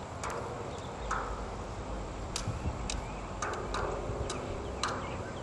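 Footsteps crunching on dry dirt and debris, a few slow irregular steps with light clicks, over a low steady rumble of wind on the microphone.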